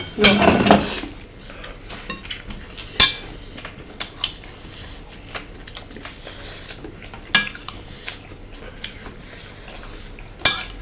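Wooden salad servers rattling against a ceramic bowl as salad is served, loudest in the first second. Then a few scattered clinks of a metal fork and spoon against ceramic bowls during eating.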